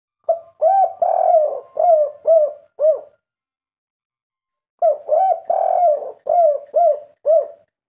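Spotted dove (derkuku) cooing its song twice. Each phrase is two short coos, a longer drawn coo, then three short closing coos, the 'kuk 3' song type that keepers prize.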